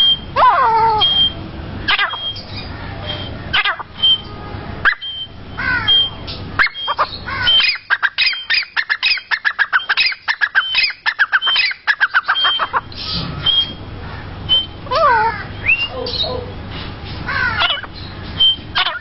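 Grey francolin (teetar) calling: loud, repeated falling notes that speed up into a fast run in the middle, then ease back to slower calls.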